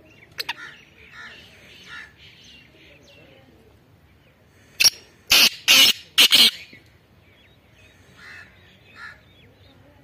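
Black francolin calling: two short sharp notes, then a burst of four loud, harsh, grating notes in quick succession about five seconds in.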